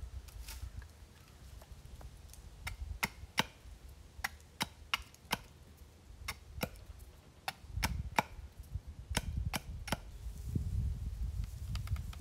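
Small hatchet chopping and shaping a wooden board braced on a stump: a run of about twenty sharp wooden knocks at an uneven pace, starting a few seconds in and stopping near the end.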